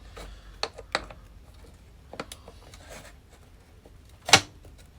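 Hand tools clicking and knocking against metal while working at stuck bolts: a few light clicks, then one loud clank about four seconds in.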